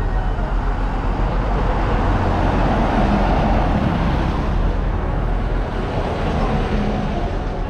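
Road traffic at night: a vehicle passes close by, its tyre and engine noise swelling to a peak about three seconds in and fading, over a steady low rumble, with another vehicle coming by near the end.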